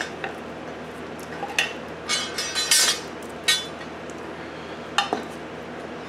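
Metal parts of a Pedders coilover, the steel coil spring and damper body, clinking and knocking together as they are fitted by hand. There is a cluster of clinks between about one and a half and three and a half seconds in, and one more sharp clink about five seconds in.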